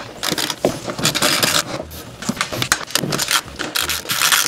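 A 10 mm socket on a hand ratchet backing out a screw from the plastic frunk tub: irregular metallic clicks and clinks, with short stretches of scraping about a second in and near the end.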